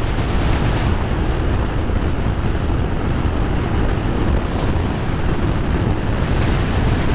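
Wind buffeting a helmet-mounted microphone on a Honda Transalp motorcycle at road speed: a steady, loud rush of wind noise, heaviest in the low end, with the bike's running sound under it.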